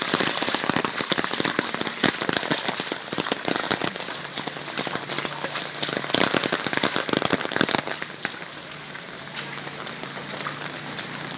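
Rain pattering hard, with close drops crackling against the microphone, easing off about eight seconds in. A faint low steady hum comes in about halfway through.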